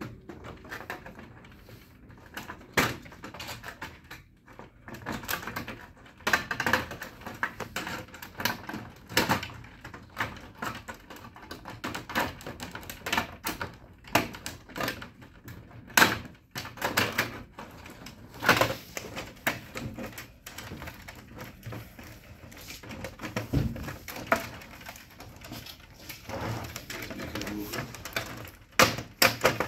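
White plastic housing panels of an HP 4001 laser printer being fitted back on by hand. Irregular plastic clicks, knocks and scrapes come as the top cover is lowered and seated.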